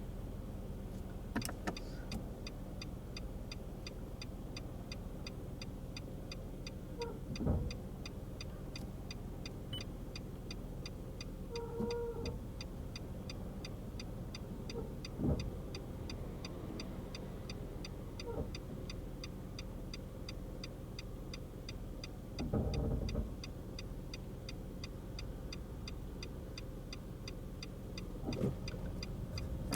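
Car engine idling while the car stands still, under a regular high ticking of about two to three ticks a second. A few brief low thumps and a short tone break in now and then.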